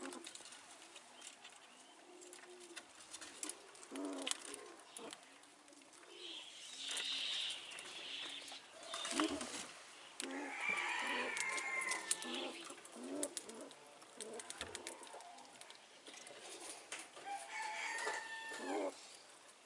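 Rooster crowing twice, a long call about ten seconds in and a shorter one near the end. Low cooing comes in the first few seconds, and scattered small clicks run throughout.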